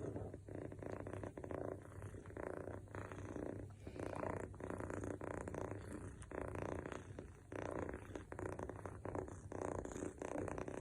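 Scottish Fold longhair kitten snoring, a close, rasping rattle that swells and fades with each breath in and out.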